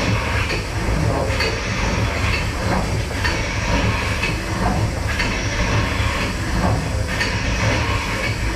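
The Tower Bridge cross-compound steam engine (built 1941) put under full steam and running slowly, a steady low rumble with a hiss of steam about once a second.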